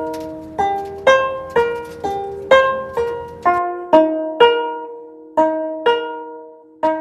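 Background music: a plucked string instrument strikes notes and chords about every half second, each one ringing and then fading.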